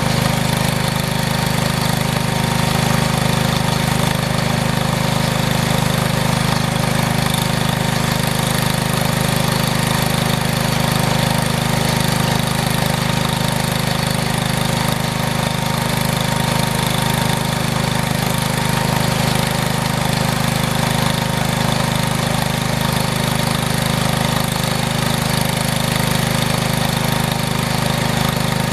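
An engine running steadily at an even speed, with no revving or change in pitch.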